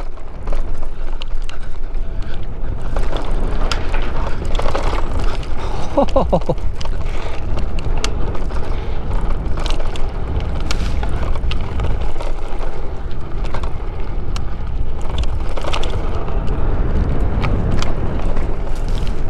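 Wind buffeting the microphone and tyres rolling over a dry dirt trail as a small electric bike is ridden along singletrack, with scattered rattles and knocks as it goes over bumps and gravel. A brief pitched sound falls in pitch about six seconds in.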